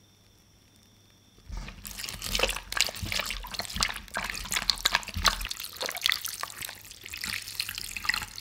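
Raw octopus being squeezed and rubbed by hand in a wooden bowl of floury water, the scrub that cleans off its slime: wet squelching, sloshing and dripping that starts about a second and a half in.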